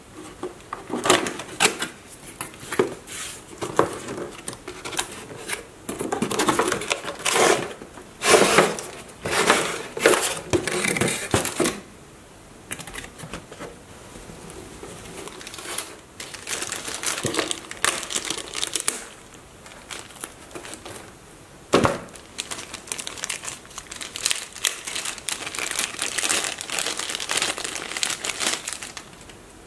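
Cardboard toy box and clear plastic packaging being handled and opened: irregular crinkling and rustling of plastic and scraping of cardboard, with one sharp knock a little past the middle. Near the end, a small plastic bag holding a battery and charging cable crinkles in the hands.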